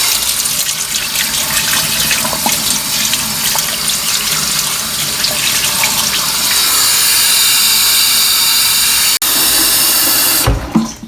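Bathroom sink faucet running hard, its water pouring through the inlet hose into the tub of a portable mini washing machine to fill it. The rushing stops near the end.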